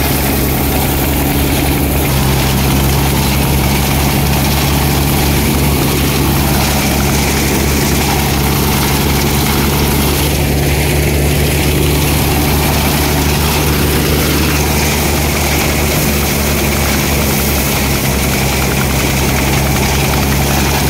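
Wheat thresher running at full work, driven by an Eicher 242 tractor's diesel engine. The engine and the thresher's spinning drum and fan make a loud, steady drone with a continuous rushing noise over it as stalks are fed in and threshed.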